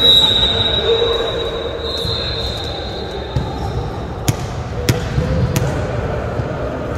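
A volleyball bouncing three times on a hardwood gym floor, sharp slaps a little over half a second apart, over the echoing hubbub of a large sports hall with other games going on. A thin, steady high tone sounds through the first few seconds.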